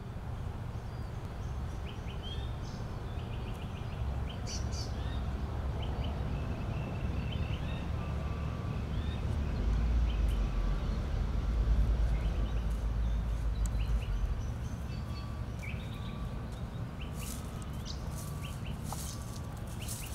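Outdoor ambience of birds chirping and calling now and then over a low rumble that swells about halfway through, with a few sharp clicks near the end.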